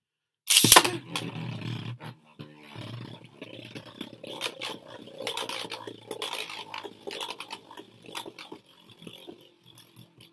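An Achilles Beyblade is launched into a plastic Beystadium. It lands with a sharp clack about half a second in, then spins with a rough scraping whir and rattle, knocking now and then against the stadium. It grows fainter near the end as the top slows.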